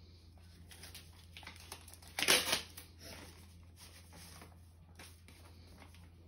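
Paper rustling as a greeting card and its envelope are handled and opened, with one short, louder tear of paper about two seconds in.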